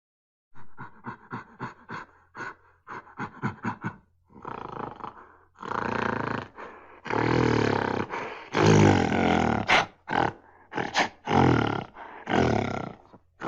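Gorilla snarling: two quick runs of short grunting pulses, about five a second, then a string of longer, louder snarls of a second or so each, the loudest about two-thirds of the way through.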